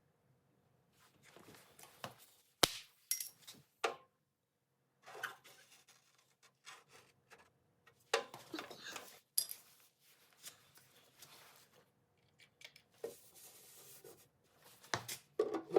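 Scattered light clicks, scrapes and rubbing of hand tools working a dented car body panel, with one sharper click about two and a half seconds in.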